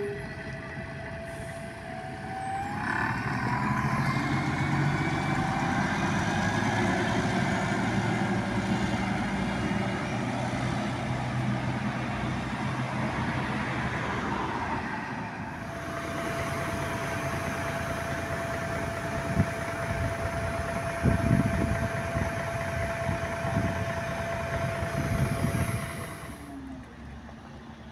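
City articulated bus pulling away from a stop, its engine note rising as it accelerates down the street. Then street traffic with a steady thin high whine and a few low thuds.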